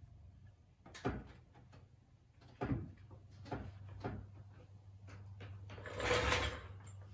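Hydraulic floor jack being let down under the front of a car, with several sharp metal knocks and clunks in the first four seconds, then a longer rushing noise about six seconds in.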